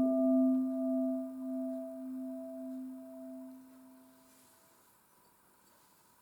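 Singing bowl ringing out after a strike, its tone pulsing slowly as it fades and dying away about four seconds in, leaving only a faint thin high tone.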